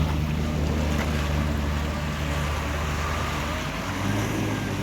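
Supercharged personal watercraft engine running at low speed, a steady, pretty quiet low hum that shifts in pitch near the end.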